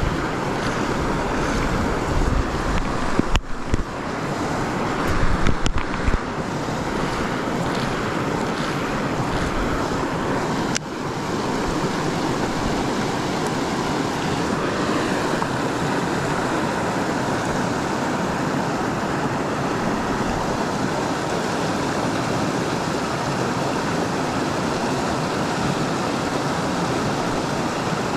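Steady rush of flowing creek water, with low wind buffeting on the microphone in the first few seconds.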